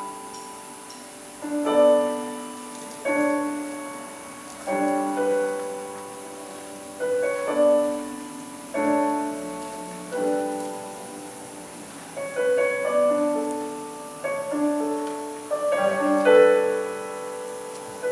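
Slow piano music: chords struck about every one and a half seconds, each ringing and fading before the next.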